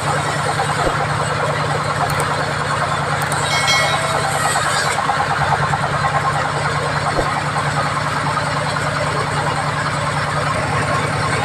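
Band sawmill running steadily, a loud continuous machine noise with a low drone, while teak logs are sawn into beams.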